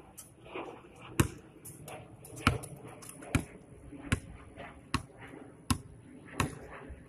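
A basketball bouncing on street pavement as it is dribbled: seven sharp bounces, most of them under a second apart.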